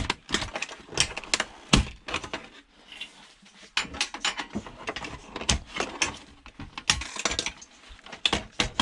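Irregular clicks, knocks and rattles of hard plastic and small metal parts as a DVD player's casing and disc-door release mechanism are worked and prised at by hand, with a short pause about three seconds in.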